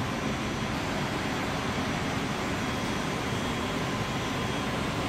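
Steady machinery noise of a chilled water pump room, with pumps running and water moving through the pipework, and a faint steady whine.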